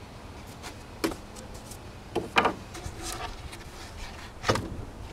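Plywood pieces being handled on a wooden workbench: a handful of sharp wooden knocks and clatters, the loudest about two and a half and four and a half seconds in, with light rubbing between.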